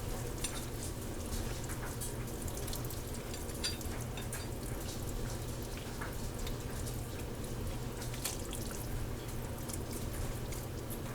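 Chicken broth simmering in a pot, with many small irregular pops and ticks, over a steady low hum.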